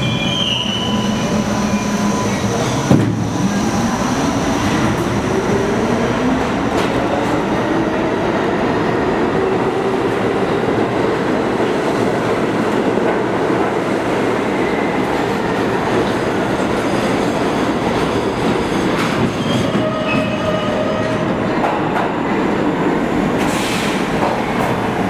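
Budd R32 subway train running along the station platform: steady wheel-and-motor running noise, with a whine that rises in pitch over several seconds and then holds steady, and a little wheel squeal.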